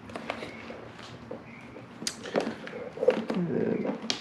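Scattered clicks and light knocks of motorcycle parts and wiring being handled and pushed into place, the sharpest about two seconds in and again around three seconds.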